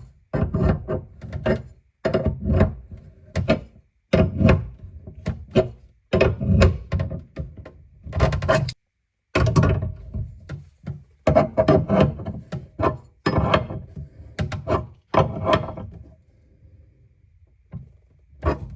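A run of sharp knocks and thuds, several a second, in clusters with short pauses, stopping for a moment about nine seconds in and dying down near the end.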